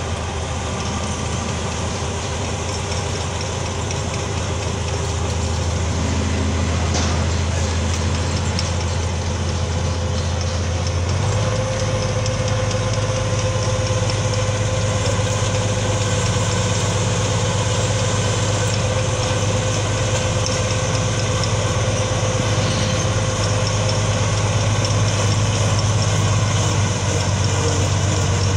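Motor grader's diesel engine running steadily as the blade levels dirt. About eleven seconds in the engine note shifts and a steady whine joins it.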